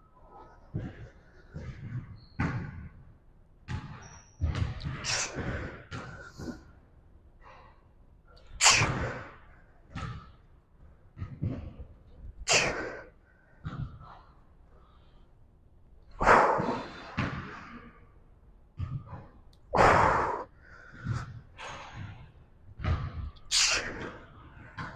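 A barbell Romanian deadlift set with a 135 lb bar: scattered thumps and knocks, and from about eight seconds in a louder rushing burst roughly every four seconds, in time with the reps.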